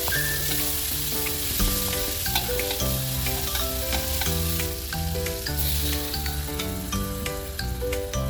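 Food frying in a hot pan: a steady sizzle with scattered pops of spattering oil. Background music with a melody and bass line plays over it.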